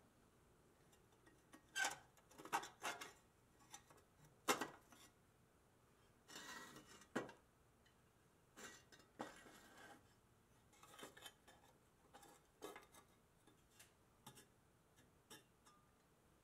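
Rusty pressed-steel toy truck cab parts being handled and set down on a wooden workbench: scattered light metal clinks and knocks, with a couple of brief scraping rubs. The loudest knock comes about four and a half seconds in.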